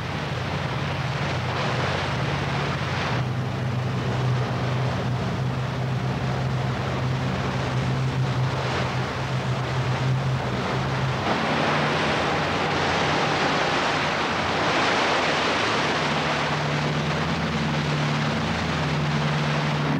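Sea rescue cruiser under way at speed: a steady low engine drone with the rush of water and wind against the hull and microphone. About halfway through the drone shifts and the rushing water grows louder.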